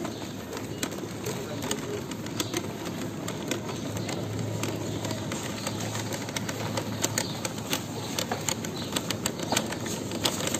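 Shopping cart being pushed over a tiled supermarket floor, its wheels and wire basket rattling in irregular clicks that come thicker toward the end, over a steady background murmur of the store.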